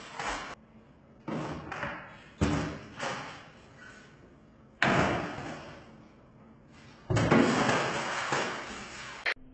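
A few sudden thuds or slams, each trailing off, the sharpest about five seconds in; near the end comes a longer noisy stretch of about two seconds.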